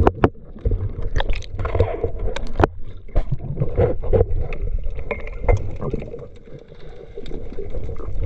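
Water sloshing and gurgling around a camera at the surface and just under it, with many scattered sharp clicks and knocks over a low rumble.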